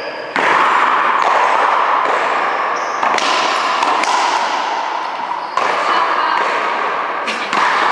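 Racquetball rally: a hard rubber ball struck by racquets and hitting the wall and floor, giving sharp thuds, over a loud steady noisy background in a large court.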